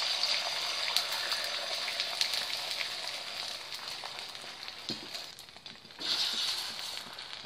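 Beaten egg sizzling on a hot oiled tawa (flat griddle). The sizzle starts loud and slowly dies down, then flares up again about six seconds in as a spatula works the egg.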